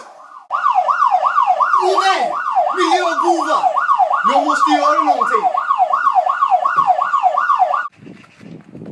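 A siren's rapid up-and-down wail, about three sweeps a second, loud, starting suddenly about half a second in and cutting off near the end.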